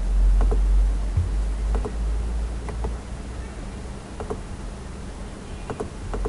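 Computer mouse button clicks, about six over the stretch, each a quick press-and-release pair of ticks, over a steady low electrical hum from the recording.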